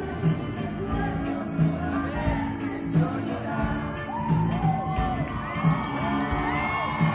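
Live band playing a song, heard from within the audience: drums keeping a steady beat under bass, electric guitar and a woman singing. In the second half the crowd whoops and cheers over the music.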